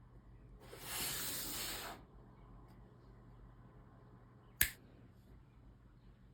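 Packaging being handled while a keyboard is unboxed: about a second of rustling or scraping, then one sharp click a few seconds later.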